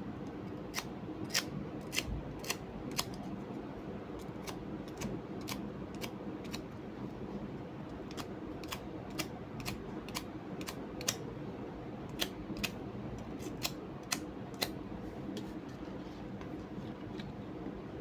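A string of irregular sharp clicks, snip-like and up to about two a second, over a steady low hum. The clicks stop a few seconds before the end.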